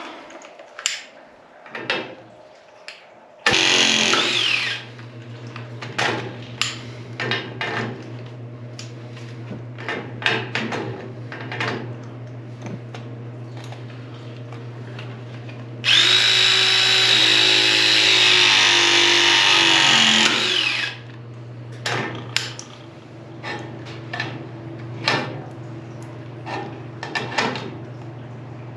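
ProPress pressing tool crimping copper press fittings: its motor runs briefly a few seconds in, then again for about five seconds past the middle with a high steady whine. Clicks and knocks of the tool and fittings being handled come between the runs.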